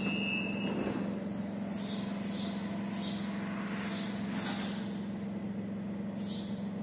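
Stadler FLIRT electric multiple unit giving off a steady, even electrical hum, with no rise or fall in pitch, as when standing with its equipment running. Short high chirps, falling in pitch, repeat about every half second over it.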